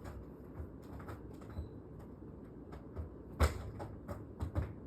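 Scattered clicks and knocks from window-unit parts being handled and fitted into place. The loudest knock comes about three and a half seconds in, with a few quicker ones near the end.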